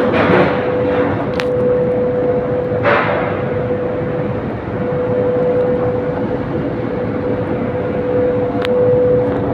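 A vehicle on the move: a steady whine over a constant rush of road and wind noise, with two brief louder swooshes, one just after the start and one about three seconds in.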